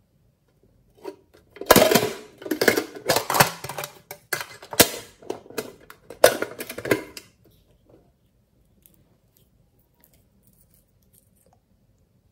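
Pink metal tin box being handled and opened: a run of sharp metallic clatters and clicks from its lid and clasp for about five seconds, then a few faint clicks.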